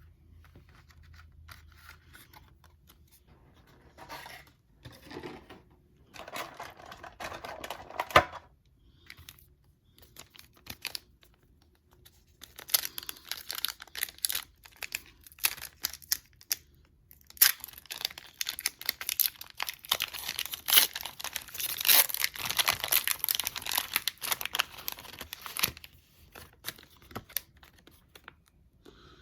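Pokémon booster pack wrapper being torn and crinkled by hand in irregular bursts. A short burst comes a few seconds in, followed by a long spell of dense crinkling and tearing with sharp crackles.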